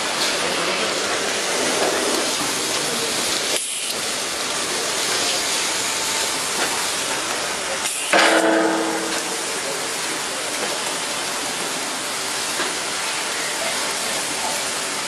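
Water jets of an automatic railway coach-washing plant spraying against a slowly passing passenger coach: a steady hiss, briefly dropping about four seconds in and surging louder about eight seconds in.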